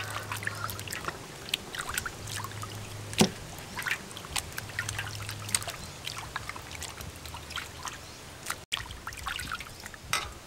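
Raw beef being washed by hand in a water-filled aluminium basin: water sloshing, splashing and trickling as the meat is squeezed and turned, in many short irregular splashes, the sharpest a little after three seconds.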